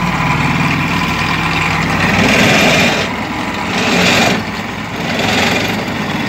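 Excavator-mounted hydraulic vibratory pile driver (vibro hammer) running steadily, buzzing as it shakes a steel pile down into waterlogged ground, with the excavator's engine under it. The buzz swells briefly about two seconds in and again near four seconds.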